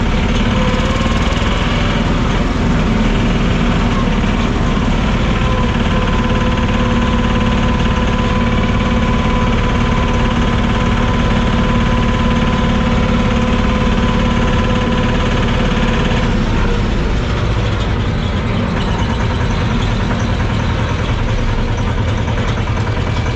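Engine of a patpat farm cart with a Tofaş four-speed gearbox, running steadily while the vehicle is driven. About 16 seconds in, the engine note changes and becomes slightly quieter. There is no grinding or whine from the just-repaired gearbox.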